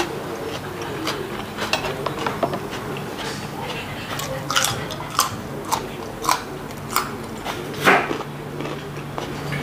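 Close-up crunching of a raw carrot stick being bitten and chewed: a run of sharp crunches, most of them in the second half, the loudest near the end, over a low steady hum.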